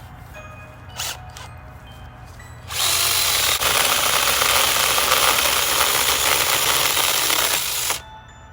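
Cordless 6-inch mini chainsaw running at full speed for about five seconds, starting about three seconds in and cutting off sharply near the end.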